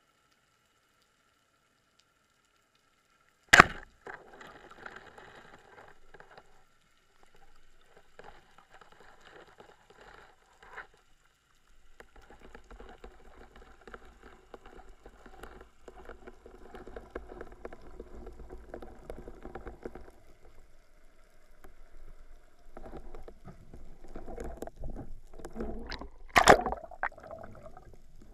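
Underwater sound picked up by a speargun-mounted camera. It is silent at first, then comes one sharp, loud click about three and a half seconds in. Faint water noise and light knocks follow, with a second sharp click near the end.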